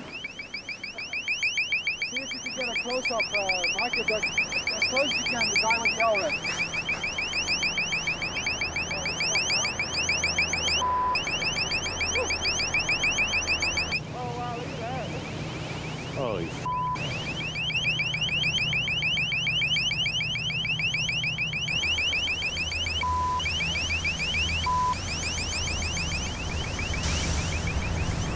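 Electronic alarm siren sounding rapid, repeated rising whoops, several a second, over the low steady drone of a ship's engine. A few short, flat beep tones cut in now and then.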